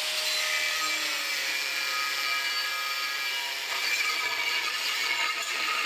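DeWalt corded angle grinder cutting through 3/16-inch steel plate: the motor runs at a steady high whine under the dense grinding noise of the disc in the steel.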